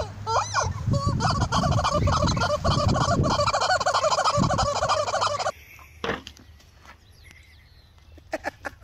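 Rubber chicken squeaky toy squawking over and over, a rapid run of wavering honks as a horse bites and squeezes it in its mouth. It cuts off suddenly about five and a half seconds in, leaving a few faint taps.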